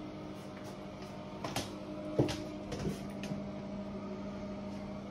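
A steady low hum in a small tiled room, with a few light knocks and clicks about one and a half, two and three seconds in.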